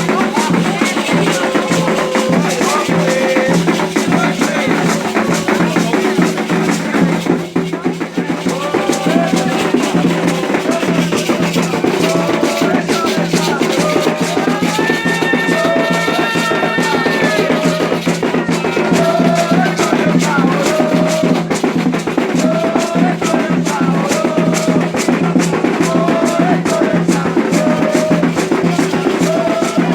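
Candomblé ritual music: hand drums and rattles playing a fast, steady rhythm, with voices singing a melody over them.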